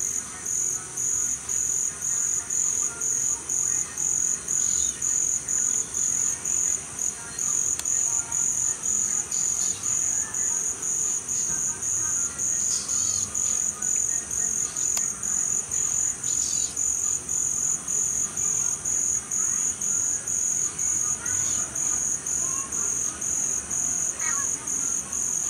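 Cricket chirping in a steady, even rhythm, about two high chirps a second, over a continuous higher insect trill.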